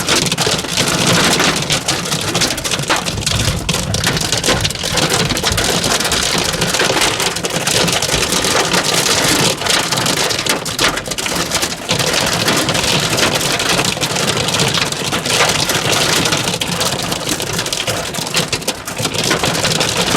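Hailstones pelting down in a heavy storm: a dense, unbroken clatter of countless small impacts.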